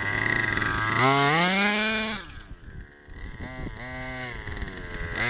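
Single-cylinder two-stroke Zenoah G320 engine of an HPI Baja 5B RC buggy idling, then revving up for about a second as the buggy pulls away. It drops off sharply, gives a couple of quick throttle blips, and settles back into steady running.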